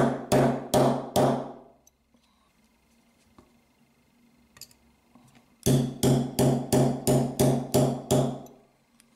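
Hammer tapping a 1/8-inch roll pin punch to drive roll pins into the grip frame of a Smith & Wesson 22 Victory pistol, each strike ringing briefly. About four strikes come in the first second or so, then a quicker run of about eight from about six to eight seconds in.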